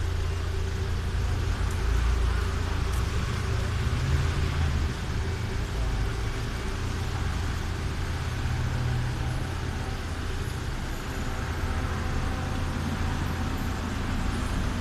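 Engines of a convoy of police vans and cars, a steady low rumble with general traffic noise.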